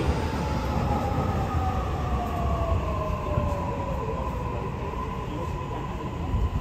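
Toei 6500-series subway train running, its Mitsubishi SiC hybrid VVVF inverter whining over the low rumble of the wheels and motors. The whine falls steadily in pitch over about four seconds as the train slows.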